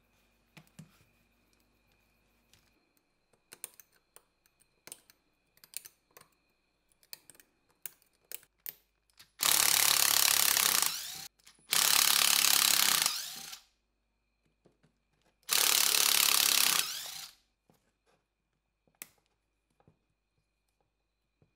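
Small clicks and taps of metal parts and tools being handled, then three loud bursts of even rushing noise, each about a second and a half long, followed by a few more clicks.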